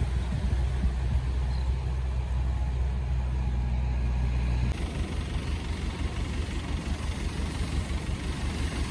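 An engine running steadily at idle over the wash of surf. Its low hum changes to a rougher, pulsing rumble about five seconds in.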